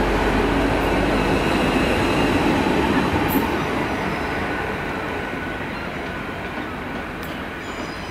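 GWR Hitachi Intercity Express Train running past on the platform line and pulling away, its rumble fading steadily. A couple of light clicks sound partway through.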